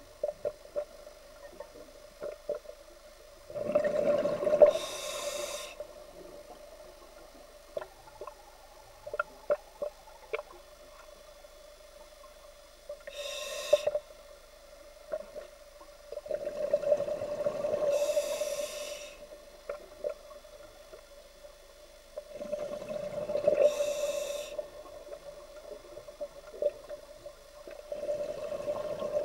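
Scuba diver breathing through a regulator underwater: a rushing breath and bubbling exhaust every few seconds, with a faint steady hum and small clicks in between.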